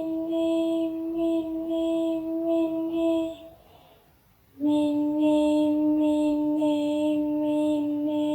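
A high singing-like voice holds one steady note with a pulsing buzz about twice a second. It breaks off about three and a half seconds in and comes back on a slightly lower note about a second later.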